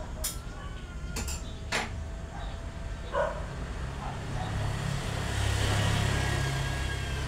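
A motor vehicle passing by, its low engine noise swelling to a peak about five to six seconds in and then easing off, with a few sharp clicks in the first two seconds.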